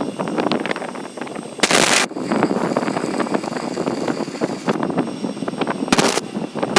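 Angle-grinder-driven belt grinder in use: a loud, uneven crackling grind full of small clicks, broken by two short loud bursts of hiss, about two seconds in and again near the end.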